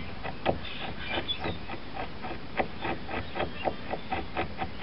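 Mora knife shaving a small wooden wedge: a quick series of short cutting strokes on the wood, about three or four a second.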